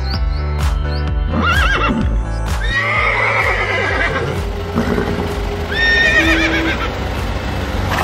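Horse whinnies, three of them, the middle one the longest, over background music whose steady beat stops about two and a half seconds in.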